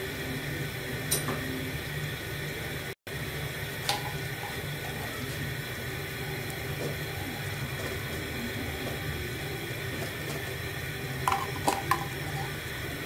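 Date-palm jaggery syrup simmering in an aluminium pot, a steady liquid bubbling over a constant low hum. A few short metal clinks of a spoon against the pot sound near the start and again in a quick cluster near the end. The sound cuts out for an instant about three seconds in.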